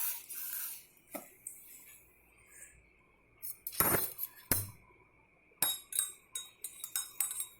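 Clinking of a cup being handled in the kitchen: a few separate knocks with a short ring, then a quicker run of clinks near the end.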